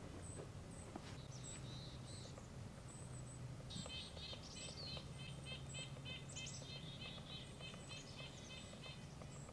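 Small birds calling, faint. Thin high chirps come every half second or so, and a quick run of short repeated notes, about four a second, sounds from a little before halfway to about three-quarters through.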